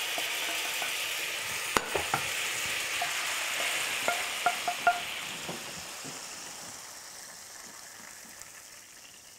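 Lamb chops and sauce sizzling in a frying pan as it is deglazed, the hiss slowly dying away. A few light clinks of a utensil against the pan come between about two and five seconds in.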